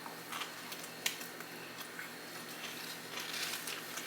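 Close-miked chewing of a Subway sub sandwich: scattered small wet mouth clicks, with a sharper click about a second in and a cluster of quick clicks near the end.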